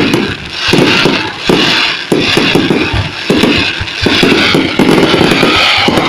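Fireworks bursting in a dense, unbroken run of bangs and crackles, with music playing at the same time.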